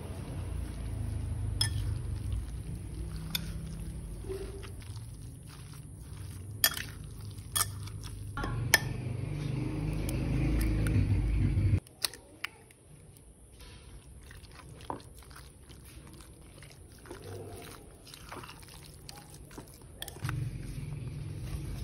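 Metal spoon stirring a moist mushroom and tofu mixture in a glass bowl, scraping and giving several sharp clinks against the glass, with an egg cracked into the bowl midway. A low background rumble runs underneath and cuts off suddenly about halfway.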